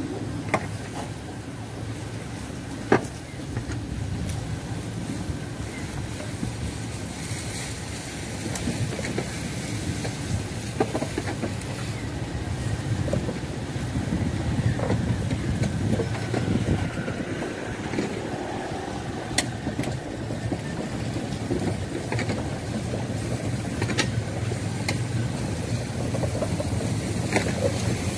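Loaded sugarcane lori wagons rolling past on narrow-gauge rails: a steady low rumble with a few sharp metallic clanks scattered through it.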